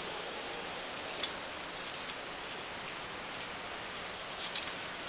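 Scissors cutting through printed paper: paper rustling and small scratchy ticks of the blades, with a sharp click about a second in and another couple near the end.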